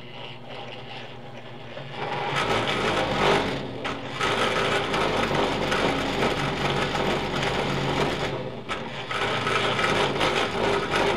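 Drill press boring a large hole in cold rolled steel with a big bit, straight after a half-inch hole with no intermediate sizes: the bit chatters against the steel, a harsh steady grinding over the motor's hum. It grows louder about two seconds in.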